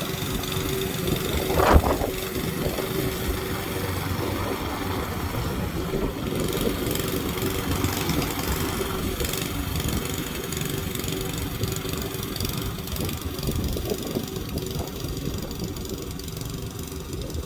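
Lawnmower engine running steadily, with one sharp knock about two seconds in.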